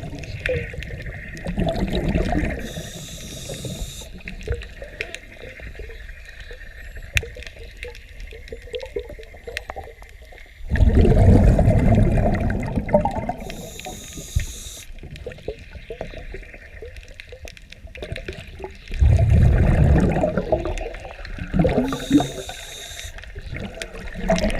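Scuba breathing underwater: a short hiss of air drawn through the regulator about every eight seconds, each followed by a loud rush of exhaled bubbles. Faint clicks and crackles fill the gaps.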